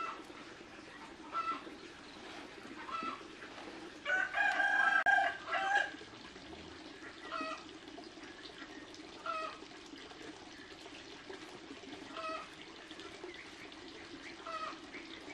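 Chickens: a rooster crows once about four seconds in, the loudest sound, while short single calls repeat every second or two.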